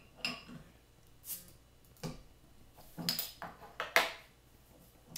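A metal cap is pried off a glass beer bottle with a bottle opener, and the bottle, cap and opener are set down on a table: a string of short clicks and clinks, the loudest a sharp knock about four seconds in.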